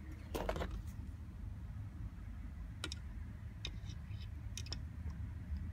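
Side cutters clicking against the copper wire coil of a helical antenna as the coil is trimmed: a brief rustle near the start, then several sharp separate clicks in the second half, over a steady low hum.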